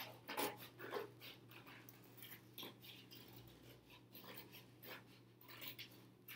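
Scissors cutting through thin cereal-box cardboard: faint, irregular crunching snips, several a second.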